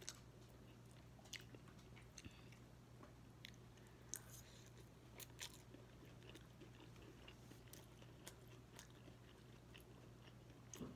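Faint close-up chewing of a soft rice-and-vegetable bowl, with scattered small mouth clicks. A low steady hum runs underneath.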